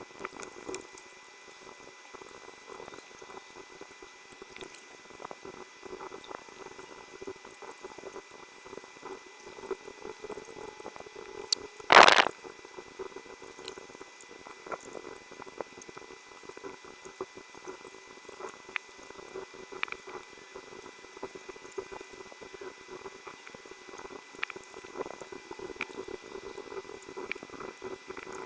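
Small clicks and handling noises from mechanical keyboard parts being worked on during assembly, over a steady low hum, with one loud knock about 12 seconds in.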